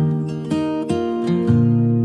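Background music: an acoustic guitar picking single notes, each struck afresh about every half second and left to ring.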